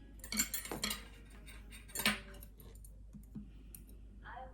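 Light clinks and knocks of small hard objects being handled: a cluster in the first second and another sharp clink about two seconds in.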